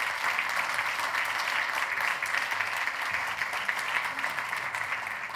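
Audience applauding, a dense patter of many hands clapping at once, beginning to fade near the end.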